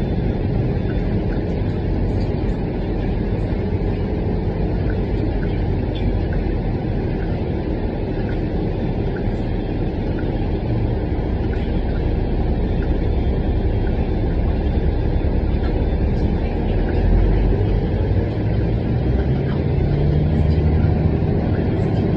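Inside a moving city transit bus: steady engine and road rumble as it drives, with the engine note climbing in the last few seconds as the bus pulls harder.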